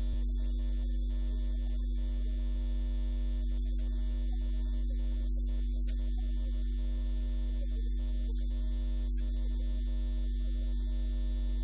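Steady low electrical hum with several fixed higher tones over it, unchanging in level.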